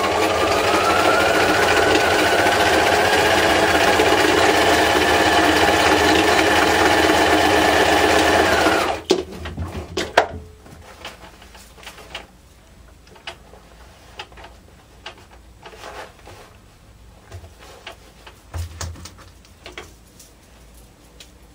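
Bernina sewing machine stitching through paper at a steady speed, its motor whine rising slightly as it gets up to speed, then stopping about nine seconds in. After that, scattered light clicks and rustles as the paper is handled.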